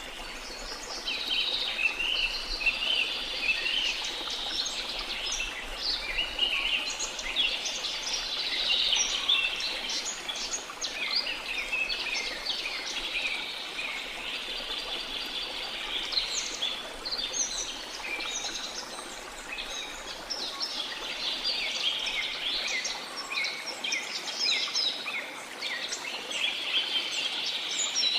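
Rainforest ambience: many birds chirping and trilling continuously over a steady hiss of flowing water.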